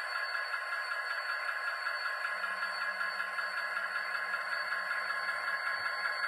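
Sound-equipped HO scale model of an SDL39 diesel locomotive, its sound decoder playing a steady diesel engine sound while the train rolls slowly along the track. It has little bass, and a faint low hum joins about two seconds in.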